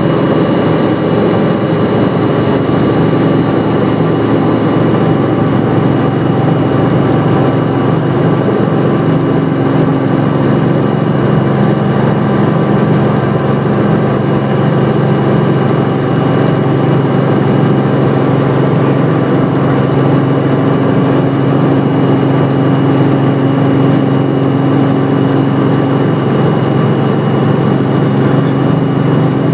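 Light helicopter's piston engine and main rotor running steadily, heard from inside the cabin as a constant loud drone with several steady tones.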